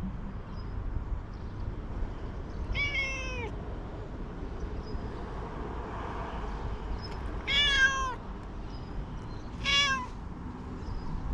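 Stray cat meowing three times, each meow falling in pitch: a few seconds in, again past the middle, and a shorter one near the end.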